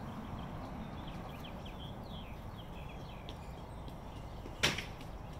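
Faint, short, high bird chirps sliding downward in pitch, repeated through the first three seconds or so over a steady outdoor background, then a single sharp click a little after four and a half seconds.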